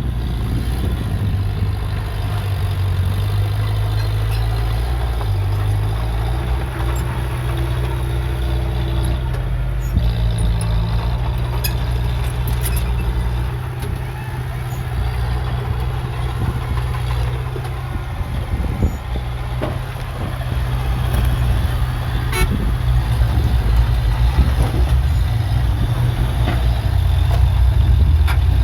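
Heavy earthmoving machine's diesel engine running steadily, with a few sharp clanks.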